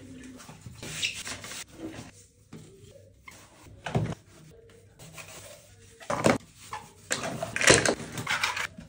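Plastic toys clattering and knocking against each other and the bathtub as they are lifted out, with an orange plastic basket and a mesh toy bag. A few separate knocks with rustling handling noise between them, the busiest stretch near the end.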